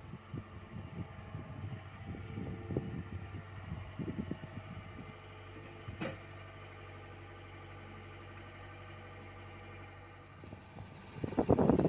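Komatsu PC75US mini excavator's diesel engine running steadily, with irregular low rumbling and knocks in the first half as the bucket works over the dump truck bed. There is one sharp click about six seconds in. A burst of loud, gusty rumbling comes near the end.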